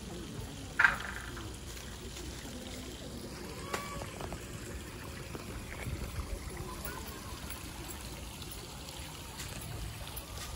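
Steady trickle of running water, with faint distant voices and a brief sharp high-pitched call about a second in.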